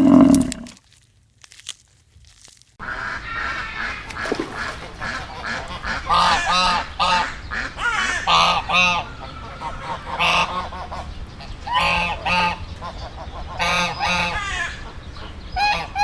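Waterfowl honking: short, repeated calls in clusters of two or three, starting about three seconds in, after a brief silence. Just before the silence, a low moo ends within the first second.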